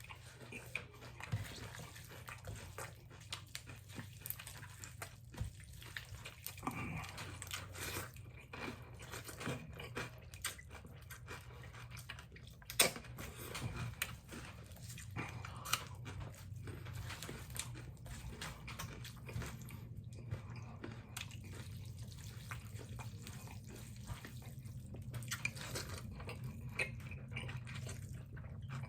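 People eating noodles: chewing sounds with many small scattered clicks and taps, over a steady low hum.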